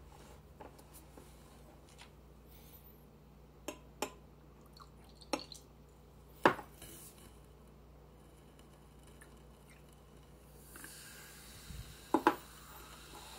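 Small glass beakers clinking against each other and the countertop as they are picked up, poured and set down, several separate clinks. Near the end a faint hiss of baking soda water poured into vinegar, fizzing as it foams.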